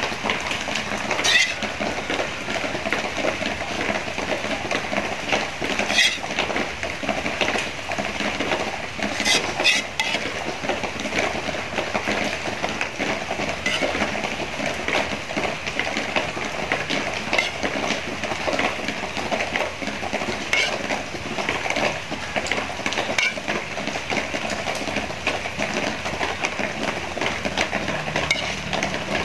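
A steady hiss, with a few short clinks of kitchen utensils on dishes or a pot as sauce is ladled over a plate of braised pork hocks and noodles.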